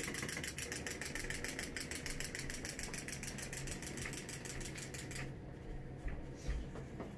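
Small wind-up toy's clockwork mechanism whirring with rapid, even ticking, about eight ticks a second, that stops abruptly about five seconds in. A low thump follows near the end.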